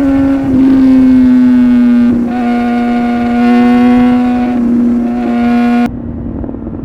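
2019 BMW S1000RR inline-four with a full Akrapovic exhaust running at high, steady revs under way, its pitch sagging slightly. About six seconds in it drops suddenly to a quieter, lower drone.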